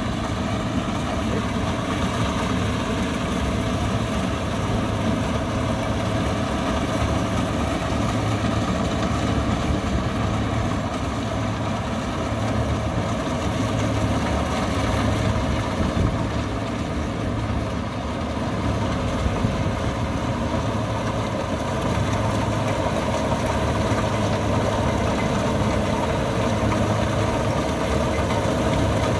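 Combine harvester's diesel engine running steadily at constant speed, with a heavy, even drone.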